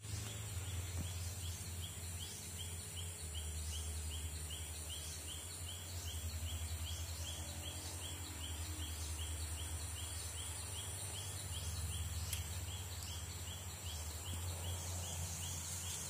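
Tropical forest ambience: a steady high-pitched insect drone, with a short rising chirp repeating about two to three times a second, over a low steady hum.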